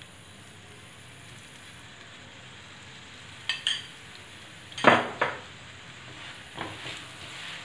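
Oil spooned onto a stuffed potato paratha on a hot non-stick pan, with a faint steady sizzle. A spoon and a wooden spatula knock and scrape against the pan several times, the loudest knock about five seconds in.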